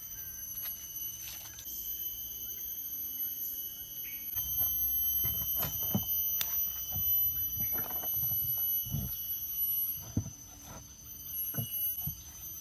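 Knocks, thumps and clatter of a metal box grill and camp cooking gear being handled, starting about four seconds in. Behind it runs a steady high insect drone at several pitches at once.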